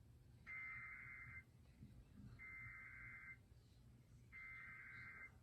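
Emergency Alert System SAME header: three quiet data bursts of warbling two-tone digital tones, each about a second long with a second's pause between. This is the coded header that opens an alert, here a New Jersey required monthly test.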